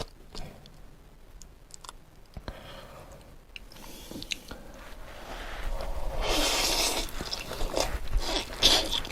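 Close-miked chewing and biting of a jokbal (braised pig's trotter) ssam wrap. Soft wet mouth clicks at first, then a louder crunchy stretch about six to seven seconds in, then more chewing.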